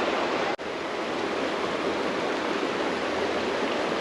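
Creek water rushing steadily, a constant even noise. It cuts out for an instant about half a second in.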